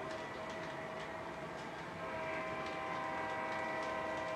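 O-scale MTH RailKing SD45 model locomotives and freight cars running on the layout's track: a steady whine with a few held tones, and light, irregular clicking of wheels on the rails.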